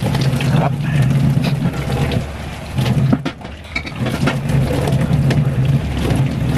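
Tap water running into a stainless-steel sink as vegetables are rinsed under it by hand, with splashing and light knocks, over a steady low drone.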